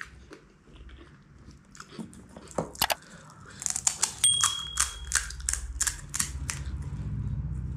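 Crisp hollow puri shells crackling as they are pressed and poked open by hand. About three and a half seconds in comes a run of quick, evenly spaced clicks with a short held bell-like ding, from a subscribe-button sound effect.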